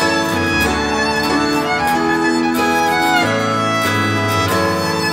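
Violin playing a sustained melody over acoustic guitar and a low bass line in an instrumental passage of a live pop ballad, with no singing.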